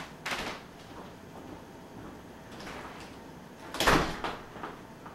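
A few short knocks and bumps, the loudest nearly four seconds in, followed by two smaller ones.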